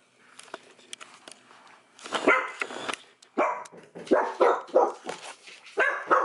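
Miniature dachshund barking in a quick series of loud, short barks, starting about two seconds in, after a couple of seconds of faint scuffling.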